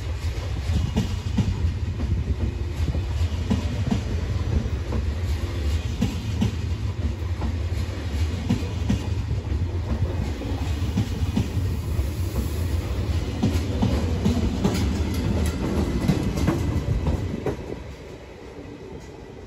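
Double-deck TGV inOui trainset rolling slowly past on the station track: a steady low rumble with wheels clicking regularly over rail joints. The sound drops away near the end.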